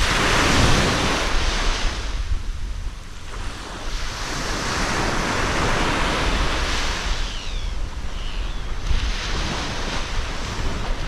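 Waves washing onto the shore, swelling and ebbing about three times, with wind buffeting the microphone.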